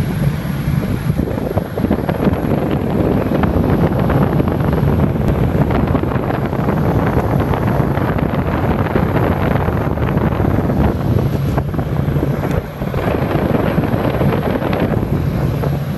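Two industrial exhaust fans running: a steady, loud rush of moving air with a low steady hum underneath.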